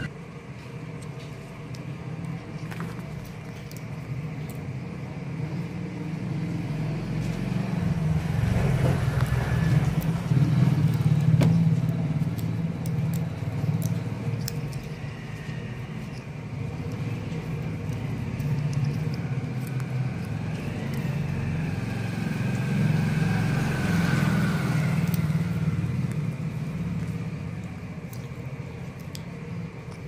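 A steady low engine-like rumble, swelling louder about ten seconds in and again a little past twenty seconds, with a few faint clicks.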